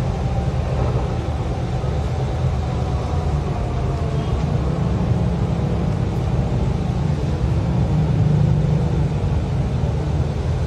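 Steady low rumble of a shuttle bus's engine and road noise, heard from inside the passenger cabin.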